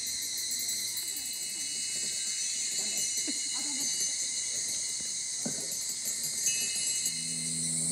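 Steady, dense chorus of insects buzzing, with a thin high ringing tone coming and going. Near the end, low sustained music notes come in.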